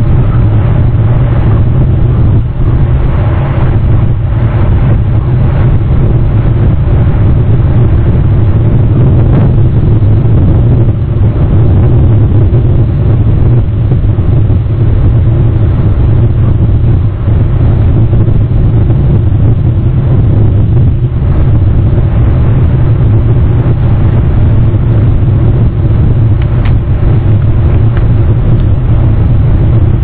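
Loud, steady low rumble with no distinct events, unchanging throughout.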